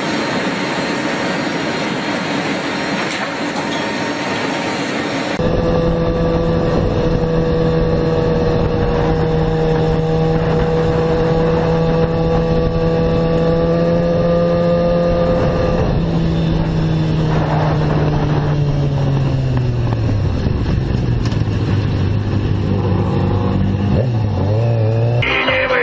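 For about the first five seconds, a steady rushing noise of wind and aircraft engines at an open cargo ramp. Then a sport motorcycle's engine running at steady high speed, its pitch falling as it slows and settling low, with a few small revs near the end.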